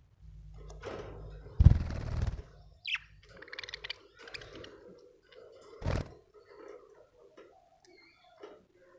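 Budgerigar giving a short falling chirp about three seconds in, then soft, patchy warbling chatter. A loud thump comes a little before the chirp, and a sharp knock comes near six seconds in.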